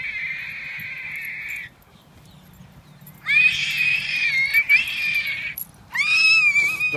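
A dog's long, high-pitched squealing cries during rough play, three of them: one trailing off near the start, a longer one in the middle, and a shorter, slightly lower one near the end.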